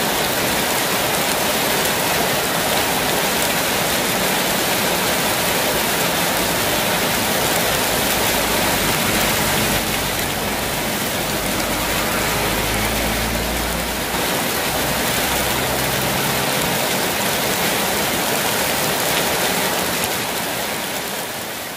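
Heavy rain falling steadily on a street and roofs, a dense even hiss. Around ten seconds in a vehicle drives past on the wet road, adding a low rumble for a few seconds, and the sound fades out near the end.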